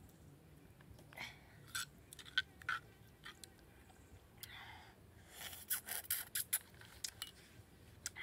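Metal spoon scraping and clicking against a stone mortar while chili sauce is mixed: a series of short, sharp scrapes and taps, busiest about five to six seconds in.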